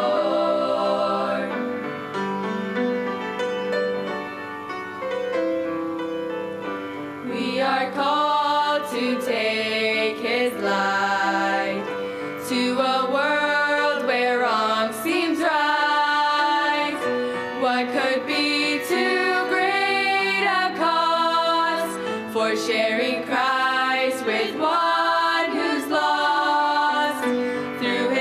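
A teenage girls' vocal group singing a gospel song in harmony, softer for the first several seconds, then fuller and louder from about a quarter of the way in.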